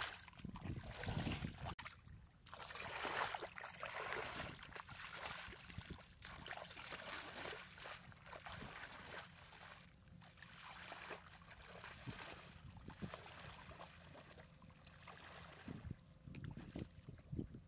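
Bare feet wading through shallow muddy floodwater, a splash and swish of water with each stride, about one every second or two.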